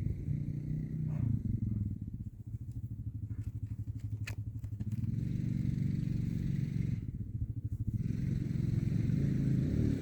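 Small off-road vehicle engine running under throttle. The engine note drops back briefly twice in the first half, then runs steadier and builds slightly toward the end.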